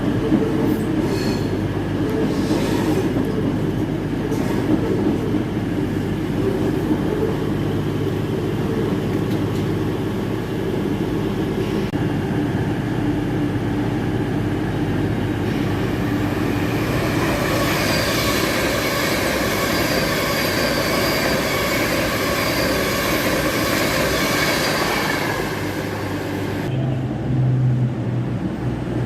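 A train running through the station with a steady low rumble, its wheels squealing against the rails with several high, held tones for some seconds in the second half.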